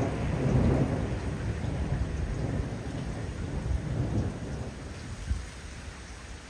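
Thunder rolling in a long low rumble, loudest about a second in, swelling again around four seconds and then dying away, with rain falling beneath it.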